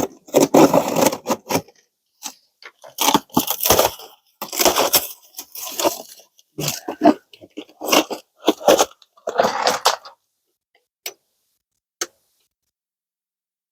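Clattering and rustling of objects being handled, in irregular short bursts, ending with two single clicks about a second apart.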